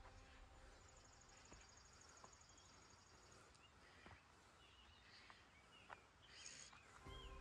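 Near-silent woodland ambience: faint bird chirps, a high, fast trill for a couple of seconds, and a few light clicks. A low hum comes in near the end.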